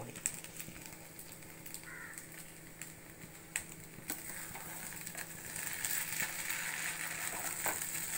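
Wooden spatula stirring broken-wheat upma in a nonstick pan, with a few sharp clicks of the spatula against the pan. A light frying sizzle grows louder through the second half.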